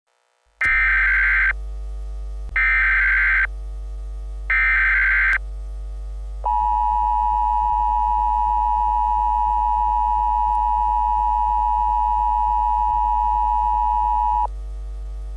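Emergency Alert System tones. Starting about half a second in, three bursts of shrill warbling SAME header data sound, each about a second long and two seconds apart. Then the EAS attention tone, a steady two-tone beep, holds for about eight seconds and stops sharply, all over a steady low electrical hum.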